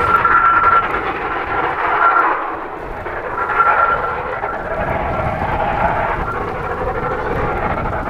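Blizzard wind gusting hard: a steady roar with a high whistle that comes and goes, easing briefly about two and a half seconds in, with wind buffeting the microphone.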